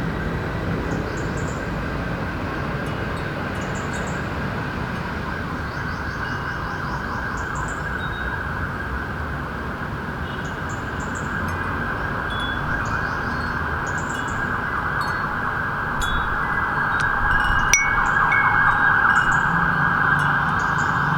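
A small wind chime tinkling now and then with short, high, thin notes over a steady city hum. The hum grows louder past the middle, and a single sharp click comes near the end.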